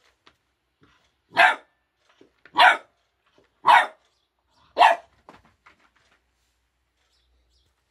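A puppy barks four times, short loud barks a little over a second apart, at its own reflection in a mirror.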